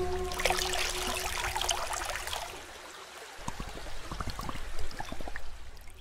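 Water splashing and gurgling as a leather waterskin is dipped into shallow water and fills, the gurgling growing denser about halfway through.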